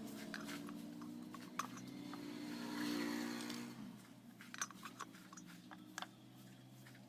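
Small single-cylinder motorcycle engine running steadily, its revs dropping off about four seconds in, with a few sharp metallic clicks along the way.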